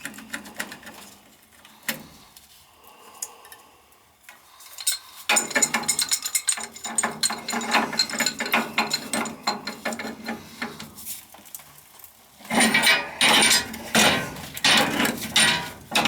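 Hand ratchet clicking in quick runs as fasteners are worked on a gas furnace's gas valve, with scattered clicks at first, then steady rapid ratcheting about five seconds in, and louder spells of clicking near the end.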